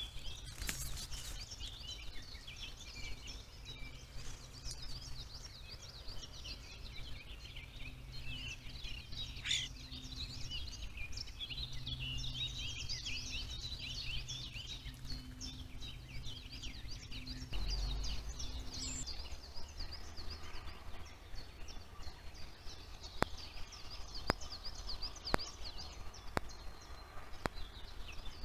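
Several birds singing and chirping in the woods, a dense scatter of short high calls, over a steady low hum that stops about two-thirds of the way through. A few sharp clicks come near the end.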